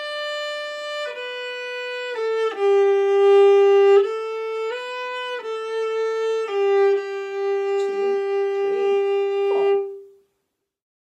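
Viola bowed solo, playing a slow melody one held note at a time in third position with dotted rhythms. It ends on a long held note that stops about ten seconds in.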